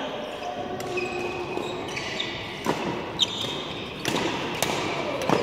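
Badminton rally: rackets striking the shuttlecock about five times in quick succession, starting a few seconds in, with short squeaks of court shoes on the floor.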